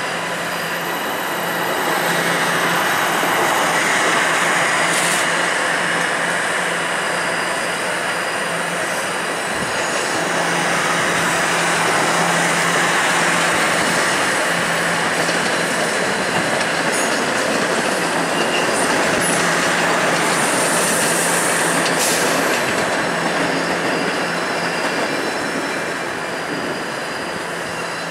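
TTC subway trains moving slowly through yard tracks and switches: a steady rumble of steel wheels on rail over a low steady hum. The noise swells twice, and faint high-pitched wheel squeals come in about two-thirds of the way through.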